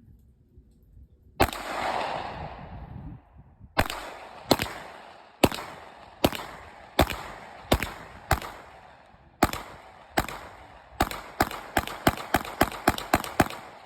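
Gunfire from a semi-automatic firearm. A single shot with a long echoing tail comes first, then about twenty shots. These start about a second apart and speed up to rapid fire, roughly three shots a second, near the end.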